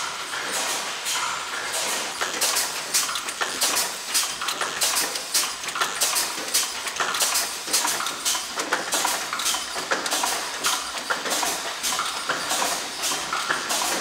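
Sachet packaging-line machinery running, with rapid, irregular clicks and clacks over a steady mechanical din.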